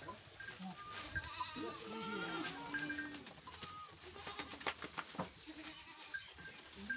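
Goats bleating, several wavering calls in the first half, over the crackle and rustle of leafy branches as the herd browses.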